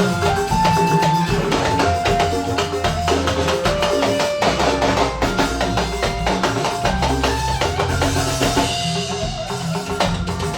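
Instrumental church band music with no singing: a melody of held notes over a steady bass line, with drums and tambourine keeping a busy beat.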